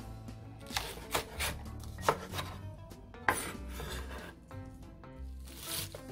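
Chef's knife slicing through a thick green Korean leek on a wooden cutting board: about half a dozen crisp, unevenly spaced cuts, each ending with the blade knocking the board. Near the end the knife cuts through a bundle of garlic chives with a longer, softer swish.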